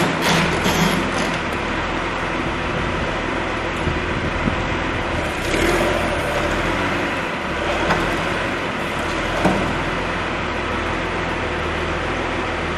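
John Deere 710 backhoe loader's diesel engine running steadily, with a few brief louder moments.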